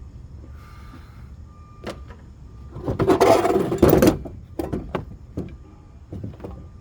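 A loud rattling clatter lasting just over a second, about three seconds in, amid scattered knocks and clinks of scrap metal parts being handled during a teardown.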